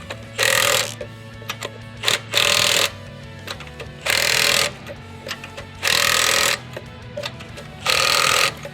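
Milwaukee M12 Fuel stubby 3/8-inch cordless impact wrench hammering on lug nuts in five short bursts about two seconds apart, one per nut of the five-lug wheel, on its second power setting. Background music runs underneath.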